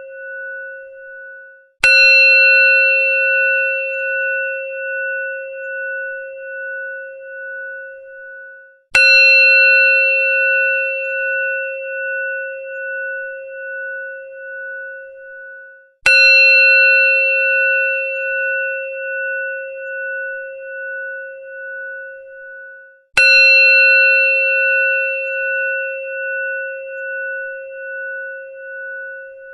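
Hindu temple bell struck four times, about seven seconds apart. Each strike gives a bright metallic clang, then a long wavering ring that fades away before the next strike.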